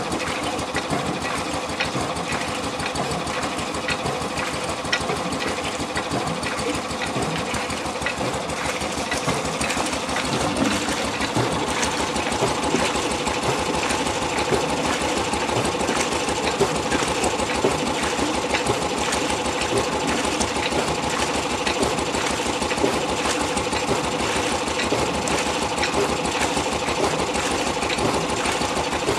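Ruston Hornsby 6PB stationary engine running steadily and belt-driving a Lee Howl Compactum 3-inch reciprocating water pump: a fast, even mechanical clatter of the pump's gears and pistons, with water splashing from the outlet pipe into a tub. The clatter gets a little louder about ten seconds in.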